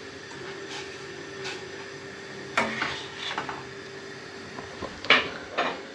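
Metal spoon stirring boiling lentils in a steel saucepan, clinking and scraping against the pan a few times, the loudest strokes about two and a half and five seconds in, over a steady low hum.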